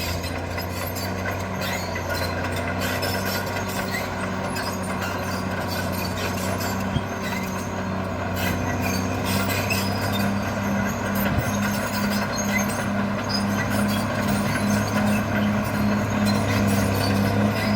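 Caterpillar D6R bulldozer working, its diesel engine running steadily with a low hum and an even, rhythmic pulsing, and many scattered clicks and clanks over it. It grows a little louder over the second half.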